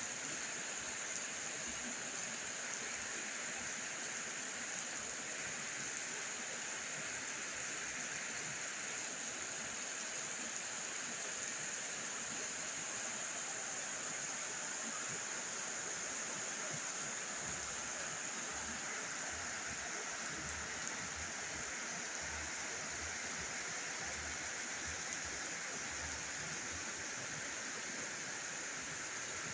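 Very heavy rain falling steadily, a dense even hiss, with scattered low knocks in the second half.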